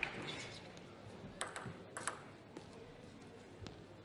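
A few scattered light clicks and taps of a celluloid-type table tennis ball being handled between points, some in quick pairs, over a faint murmur from the hall.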